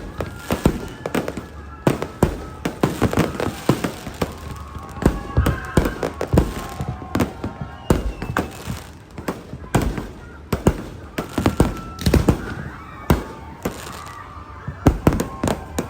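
Many fireworks going off at once: a dense, irregular string of bangs, several a second, overlapping one another.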